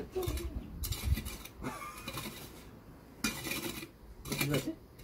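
Metal shovel blade chopping and scraping into gravelly soil, about five strokes with a short pause in the middle.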